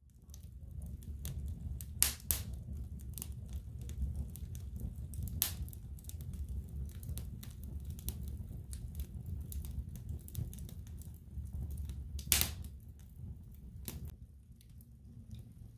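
Log fire burning in a cast-iron fireplace: a steady low rumble of flame with scattered sharp crackles and pops from the burning wood, the loudest about two seconds in and again near twelve seconds in.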